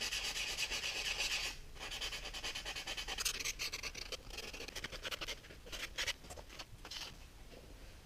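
Quick, repeated scraping strokes of a hand file and sandpaper along the snipped edge of a thin steel clock hand, smoothing the cut edge. The strokes pause briefly about one and a half seconds in and grow sparser and more uneven toward the end.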